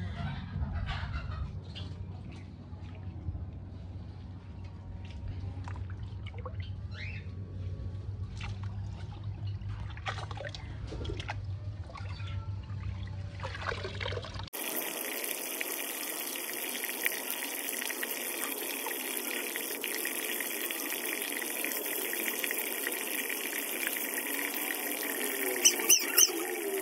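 A thin stream of water pouring from above and splashing into a shallow fish pond: a steady hiss that starts suddenly about halfway in. Before it, short scattered sounds over a low rumble.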